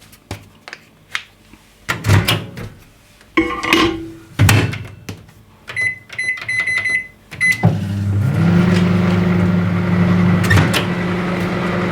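Knocks and clicks of handling, then a quick run of short keypad beeps, then an 800-watt microwave oven starting up and running with a steady hum, set for 30 seconds to dry flowers in a microwave flower press.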